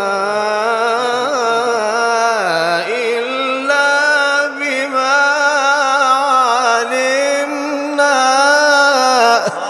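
A man reciting the Quran in a melodic chant, drawing out one phrase in long held notes that waver and turn in pitch, with a dip and rise about two and a half seconds in.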